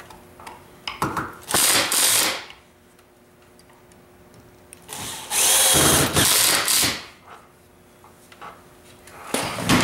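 Cordless drill driving screws into a walnut face frame: two runs, about a second and then about a second and a half, with a short knock near the end.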